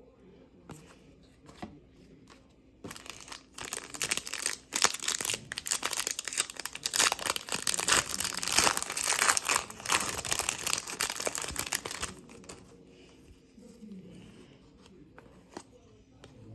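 Wrapper of a 2022 Mosaic football card pack being torn open and crinkled: a dense crackling rustle from about three seconds in that stops about twelve seconds in, with faint handling noises before and after.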